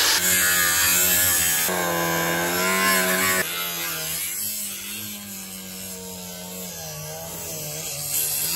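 Electric angle grinder cutting through the bottom of a metal garage door. The motor's pitch dips and wavers as the disc bites into the steel. It gets quieter about three and a half seconds in and keeps running.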